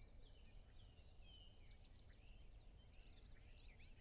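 Faint birdsong: several birds chirping, with short rising and falling calls overlapping throughout, over a low steady rumble.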